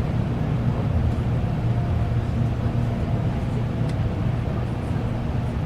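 Interior noise of a Shinkansen bullet train cabin as it arrives at a station: a steady low rumble with a faint thin whine over it.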